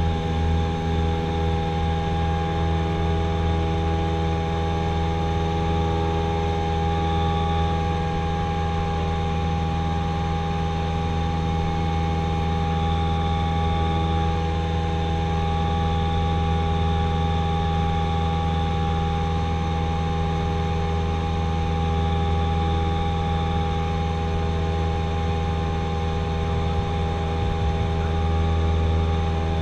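Cessna 172SP's four-cylinder Lycoming engine and propeller running steadily at takeoff power, heard from inside the cockpit as the plane rolls off the runway and climbs out.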